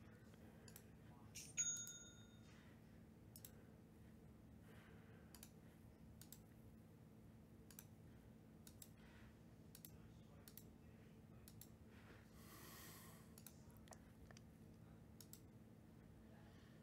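Near silence with faint computer mouse clicks scattered throughout. About one and a half seconds in comes a short electronic notification chime, and about twelve seconds in a soft rustle lasting about a second.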